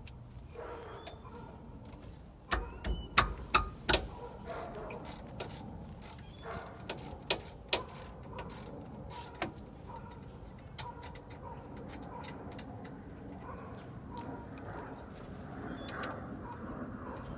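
Metal tools and parts clinking and knocking during a car brake job. There is a quick cluster of sharp, loud strikes about three seconds in and a sparser run of knocks a few seconds later, then only faint clicking.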